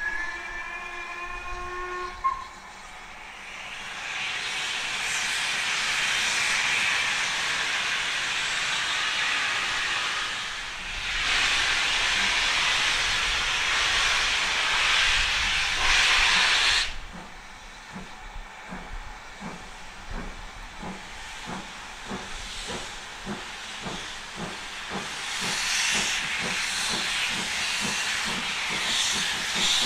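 A steam locomotive, BR Standard Class 4MT 2-6-4 tank No. 80080, gives one whistle blast of about two seconds as it starts away. A long loud hiss of steam follows, from the open cylinder drain cocks, and cuts off suddenly about 17 seconds in. Then the engine's exhaust beats come through steadily, about two a second, as it pulls away.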